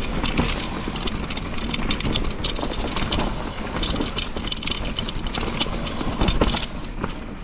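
Mountain bike rolling fast down a rough trail: a continuous rattle and clatter of the bike and tyres over roots and dirt, with a steady low rush. Knocks come throughout, with a harder clatter a little before the end.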